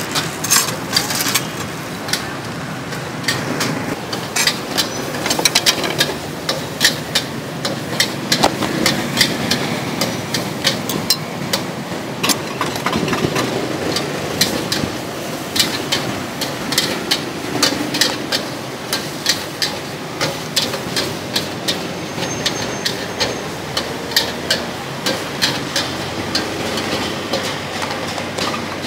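Irregular sharp clinks and knocks of utensils and ice being handled around a glass blender jar, over a steady background hum.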